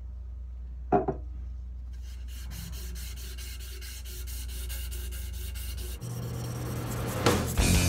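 A strip of 240-grit sandpaper pulled rapidly back and forth around a wooden axe handle, shoeshine-style: an even rasping rub of quick strokes that grows louder near the end. A single knock about a second in.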